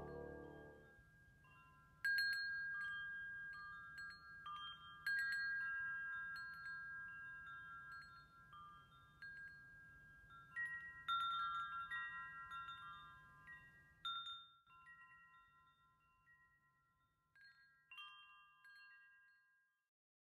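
Chimes struck in several clusters of clear, high metallic tones, each cluster ringing out and slowly fading before the next. Ambient music dies away in the first second.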